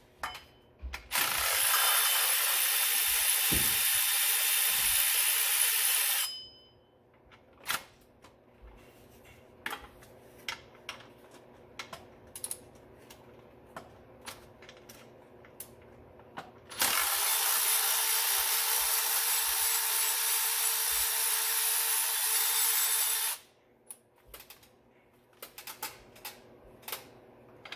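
A power ratchet runs twice, each time for about five to six seconds, spinning out the 13 mm bolts of the alternator and power steering pump bracket. Between the two runs come scattered clicks and clinks of the tool and socket.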